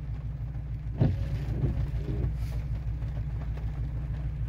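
Steady low drone of an idling engine, heard from inside a vehicle cab, with a single sharp click about a second in.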